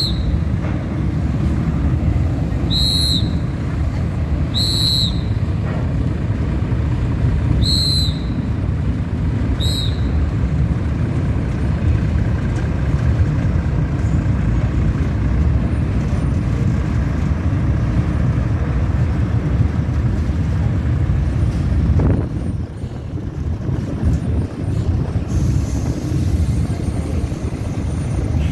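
Heavy articulated lorry's diesel engine running, a low steady rumble as it drives slowly off a roll-on roll-off ferry's ramp. Five short high whistle-like tones sound in the first ten seconds.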